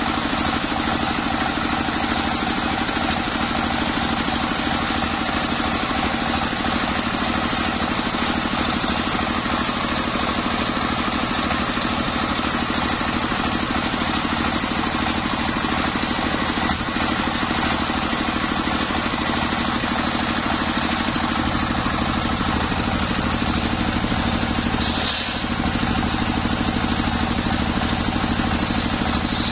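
Stationary diesel engine running steadily, belt-driving a large circular saw that is ripping a long waru log lengthwise, the blade hissing through the wood over the engine's steady note. About 25 s in the sound briefly dips and a short higher hiss comes through.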